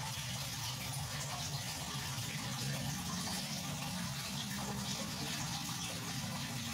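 Aquarium filter running: a steady rush and trickle of water pouring into the tank, with a low hum underneath.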